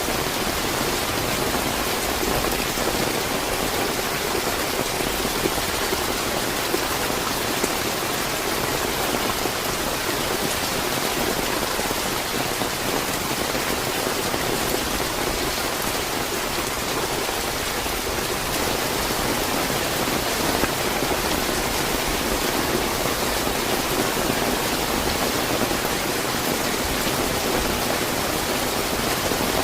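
Steady, fairly heavy rain: a dense, even hiss of falling drops with scattered individual drop ticks, holding the same intensity throughout.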